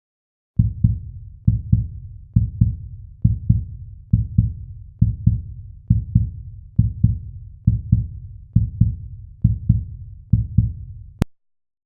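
Heartbeat sound effect: a steady run of about a dozen double low thumps (lub-dub), roughly one beat every 0.9 seconds, stopping abruptly near the end.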